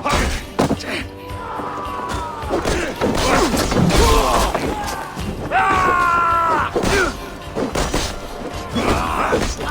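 Video game battle audio: a music score under repeated hits, clashes and crashes, with pitched shouts from fighters, the strongest about six seconds in.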